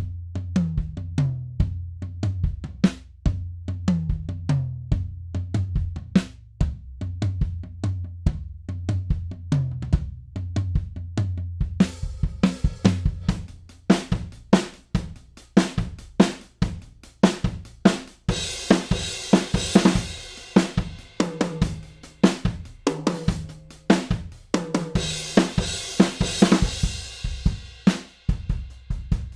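Sampled acoustic drum kit from Toontrack's Stockholm SDX library in Superior Drummer 3, playing a kick, snare and hi-hat groove at 144 BPM. About twelve seconds in the mix preset changes: the deep kick boom gives way to a brighter, drier sound. Crash cymbals wash over the beat twice in the second half.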